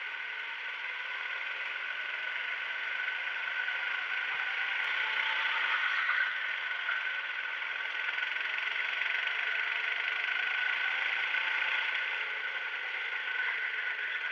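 Go-kart engine running under throttle, heard from a camera on the kart, with a steady held tone. It swells in loudness about six seconds in and again near the end.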